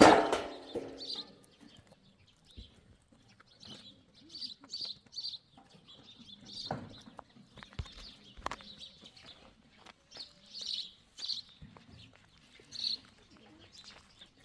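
Birds chirping in short, high calls all through, with a loud knock at the start that rings on briefly and a few fainter knocks later.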